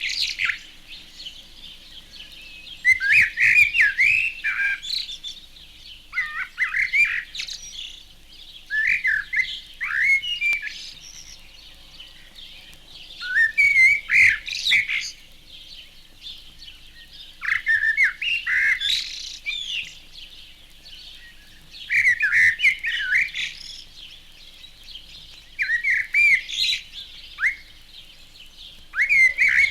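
Male common blackbird singing: about eight mellow, fluting phrases, each ending in a higher twitter, with pauses of a few seconds between them. Behind it, a steady chorus of house sparrows chirping.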